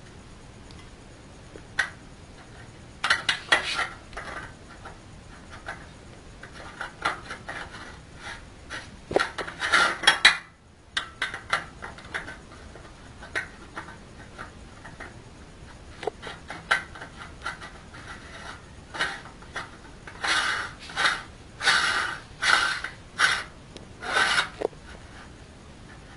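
Metal parts of a small pellet mill head being handled and fitted: the perforated steel die plate and its retaining ring clicking, clinking and scraping against the barrel in irregular bursts, busiest about ten seconds in and again near the end.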